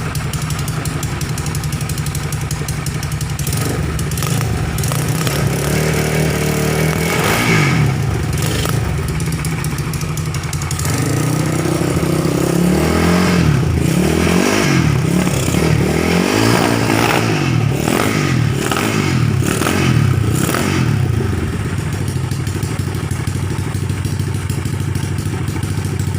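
Viar trail motorcycle engine, stroked up to 260 cc, running and being revved over and over with quick throttle blips that rise and fall, settling back to a steady idle near the end.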